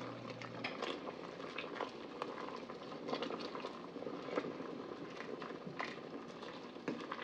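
Pot of cabbage soup bubbling as it heats, stirred with a wooden spoon, with a steady low hiss and scattered small clicks and splashes of liquid.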